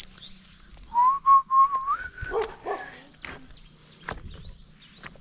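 An animal call: a rising whine about a second long, then two short yelps, over footsteps on stones and dry leaves.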